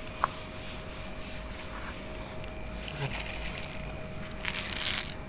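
Dry cat food rattling out of a metal canister onto a wooden board, loudest near the end, after a couple of light clicks.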